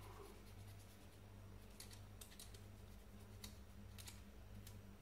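Near silence over a low steady hum, with a handful of faint scratchy clicks in the second half as a small hand tool works on a model locomotive's metal pickup contact, cleaning it.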